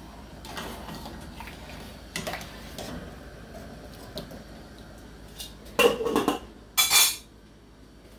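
Slotted metal spoon stirring and clinking in a large steel pot of boiling rice, then two loud metal clanks a second apart near the end as the lid is set on the pot.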